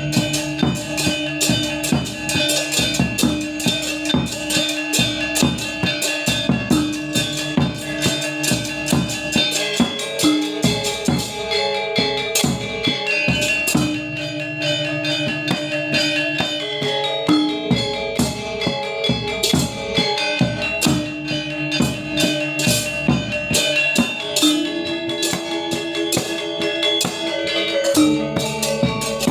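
Balinese gamelan gong ensemble playing. Bronze metallophones are struck in fast, dense patterns over drums, with held low tones that change every few seconds.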